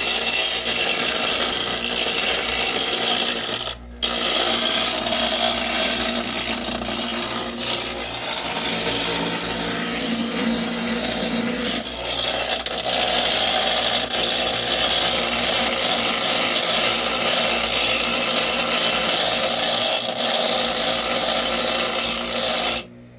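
Power tool running continuously under load, cutting out for a moment about four seconds in before starting again, most likely while shaping the metal exhaust plate for the turbo.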